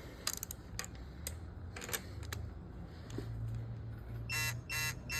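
A few sharp clicks, then about a second before the end a digital torque wrench beeps rapidly and repeatedly, about three beeps a second, signalling that a cylinder-head stud has been tightened to the target torque of about 95.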